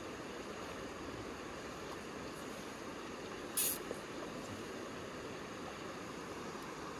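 Steady rush of a fast-flowing shallow river, with one brief high swish a little past halfway.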